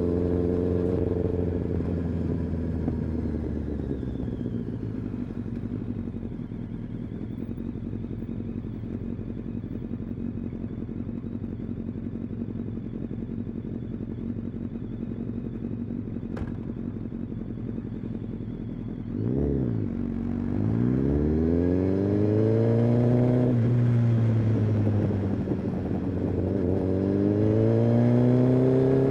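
Kawasaki ZX-10R inline-four engine and exhaust: revs falling as the bike slows, then running steadily at low revs for about fifteen seconds. Near the end a quick blip of the throttle, then the revs climb and drop several times as it pulls away and shifts up.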